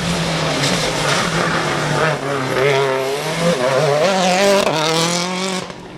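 Rally car engine revving hard, its pitch rising and falling repeatedly as it changes gear, until the sound drops away abruptly near the end.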